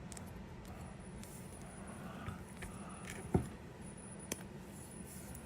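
Small steel parts of a vintage Craftsman boxhead ratchet clicking and lightly scraping as they are worked loose by hand, the sharpest click about three seconds in and another about a second later. A low steady hum runs underneath.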